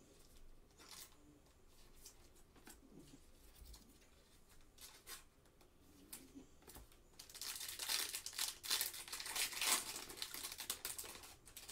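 Foil wrapper of a Panini Select trading-card pack crinkling and tearing as it is ripped open. There is quiet card handling at first, then a loud stretch of crackling starting about seven seconds in.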